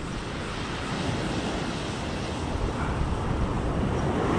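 Wind buffeting the microphone over the steady wash of the sea, the rumble growing louder toward the end.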